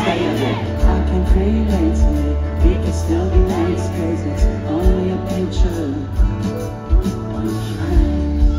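Live band performance: a sung melody over acoustic and electric guitars, sustained bass and a steady kick-drum beat about every two-thirds of a second.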